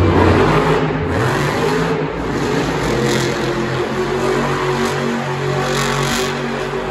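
Monster truck engines, supercharged V8s, revving loudly. They are heaviest right at the start, then settle into a steadier, slightly quieter run.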